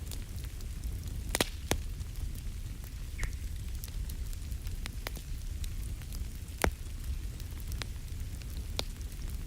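Fireplace fire crackling: irregular sharp pops and snaps, two of them louder than the rest, over a steady low rumble.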